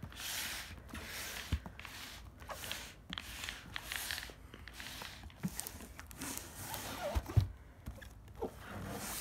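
Hands handling a shrink-wrapped cardboard box: the plastic wrap rustles in repeated swishes, with a few light knocks.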